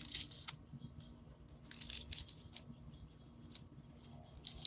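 Green corn husks being torn and peeled back from a freshly picked ear of corn, in a few short, crisp rips: one at the start, a longer spell about two seconds in, and another near the end.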